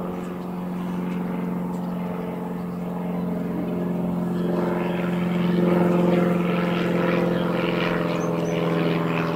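Propeller aircraft engine running, a steady droning hum with one strong low note and its overtones, swelling a little in the middle.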